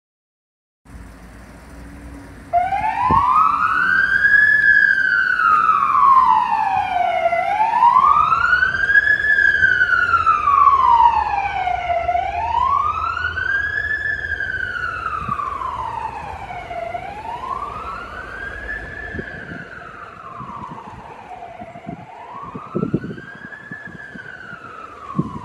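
Siren on the Cincinnati District 4 chief's 2018 Ford F-150 sounding a slow wail, rising and falling about every five seconds, over street traffic. It starts about two and a half seconds in and grows fainter as the truck drives away.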